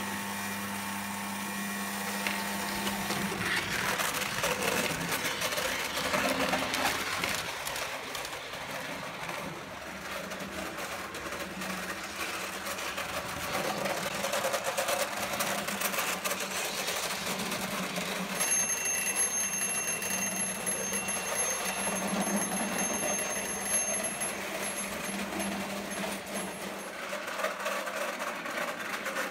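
Prewar Lionel O gauge electric train running on three-rail tinplate track: a steady clatter of wheels with the motor's whir. In the second half, the layout's electric warning bell rings steadily.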